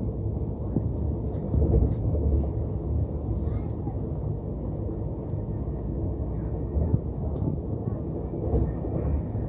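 Express passenger train running at speed, heard from inside a coach: a steady low rumble of the wheels on the track and the moving coach, with small irregular jolts.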